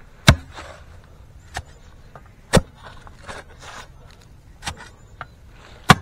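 Clamshell post-hole digger jabbed down into the hole, its steel blades striking something hard in the soil: three sharp hits a few seconds apart, with lighter knocks between.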